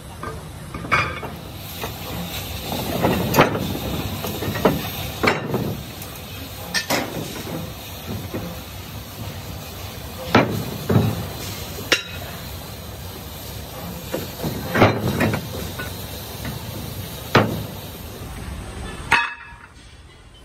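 Heavy flame-cut steel rim discs clanking as they are pried out of a cut ship's plate and dropped onto each other and onto the steel sheet: a dozen or so irregular metal impacts with a short ring, over a steady hiss.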